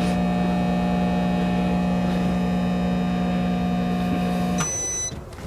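A 700-watt microwave oven running on inverter power from the battery, with a loud, steady electrical hum. The hum cuts off about four and a half seconds in as the 30-second cycle ends, followed by a short high-pitched beep.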